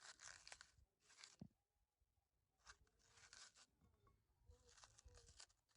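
Faint, repeated rasping strokes of hand food preparation, four short bouts, each under a second long, with pauses between.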